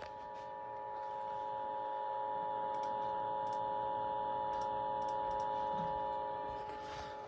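Emergency Alert System two-tone attention signal (853 Hz and 960 Hz sounding together) heard over the radio. It is a steady dual tone that grows louder over the first two seconds and cuts off near the end, over a lower steady hum and a few faint clicks.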